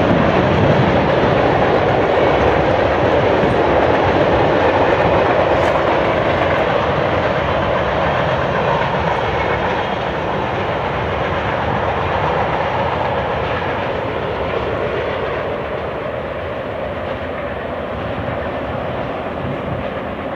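Freight train cars, autoracks then covered hoppers, rolling past on steel wheels. A steady rumble and rattle of wheels on rail slowly fades as the train moves on.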